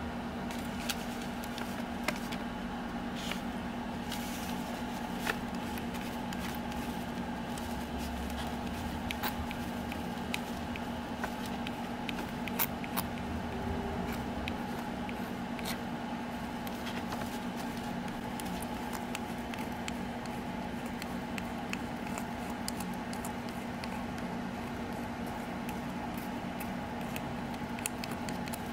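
Steady low hum in the room, with scattered light clicks and scrapes as hands work small metal parts: steel wires, a lead weight and a file.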